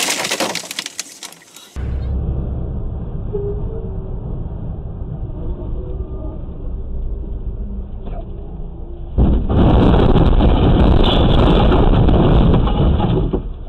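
Steady low road-and-engine rumble of a moving vehicle, as picked up by a dashcam inside the cab. About nine seconds in it turns much louder and rougher and stays loud for several seconds. Before it, a short loud stretch of noise cuts off about two seconds in.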